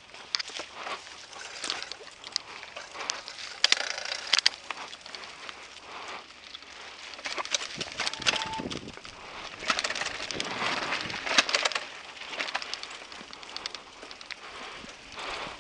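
Mountain bike riding fast down a dirt singletrack covered in dry leaves: the tyres crunch and crackle over leaves and dirt, and the bike rattles, with irregular sharp knocks as it hits bumps.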